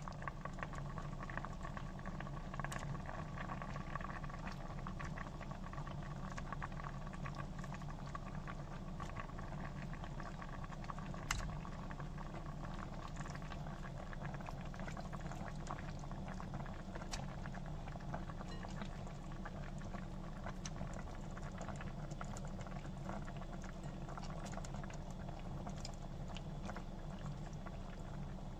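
Stainless steel pot of salmon heads and salmon pieces with cabbage simmering in broth, bubbling with many small irregular pops and crackles over a steady low hum. One sharper click about eleven seconds in.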